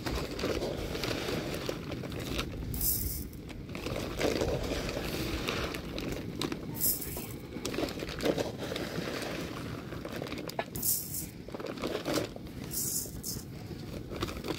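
Rice being scooped with a cup from a woven plastic rice sack: the sack crinkles and rustles continuously, with four short hisses of grains pouring.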